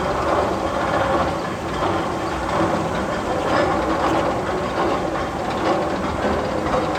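Steady train-like rumbling and clatter with a faint hum of a few held tones, running on without a break, from the Magnum XL 200 roller coaster's tunnel.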